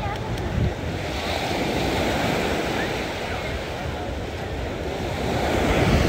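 Sea surf washing onto a sandy beach in a steady wash that swells about a second in and again near the end, with wind buffeting the microphone.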